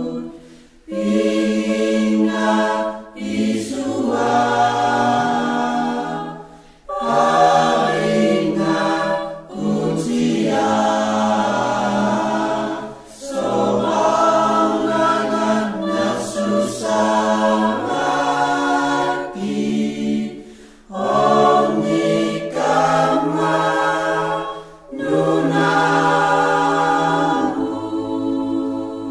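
A choir singing a Christmas hymn unaccompanied, in sustained chordal phrases with short breath pauses between them.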